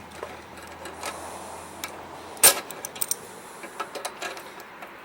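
Scattered metallic clicks and clanks of vice grips being worked against a mower engine's flywheel brake lever and spring, with one sharp click about two and a half seconds in.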